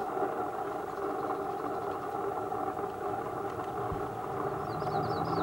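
Steady drone of a vehicle engine running, with a few short high chirps near the end.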